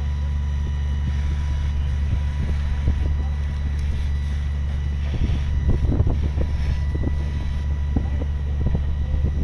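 Wind buffeting an uncovered microphone in irregular gusts, strongest around the middle, over a steady low rumble.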